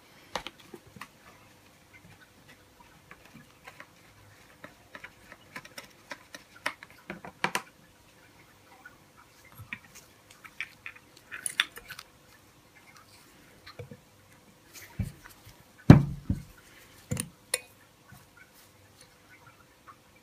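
Gloved hands working brake-fluid-lubed pistons into the bores of a Suzuki SV650 front brake caliper by thumb: scattered light clicks, taps and glove rustles, with a few louder knocks, the loudest about three-quarters of the way through.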